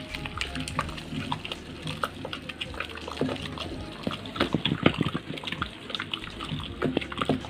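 Cooked toor dal and ridge gourd being mashed with a wooden dal masher in a pressure cooker: irregular wet squelching with quick knocks of the masher against the pot, busiest about four to five seconds in.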